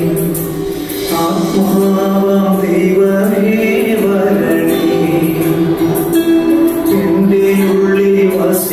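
A song: singing voices over instrumental backing, a steady melody with no pause.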